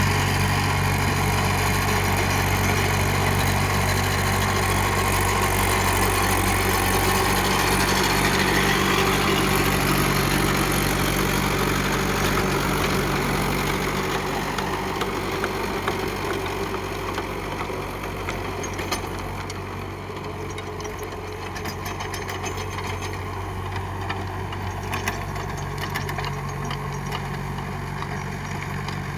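Mahindra 575 DI SP Plus tractor's diesel engine running steadily. It is louder through the first half and settles to a somewhat quieter, even run about halfway through.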